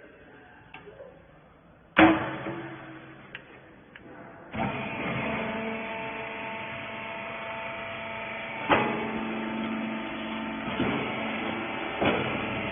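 Horizontal bagging baler: a loud clack about two seconds in, then the machine's hydraulic power unit starts and runs steadily with a hum and a whine, with a few sharp knocks from the mechanism.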